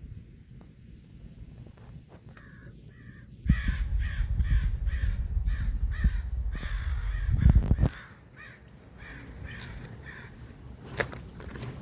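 A bird giving harsh, caw-like calls in a rapid repeated series, two to three a second, from about two seconds in until near the end. A loud low rumble joins them for about four seconds in the middle.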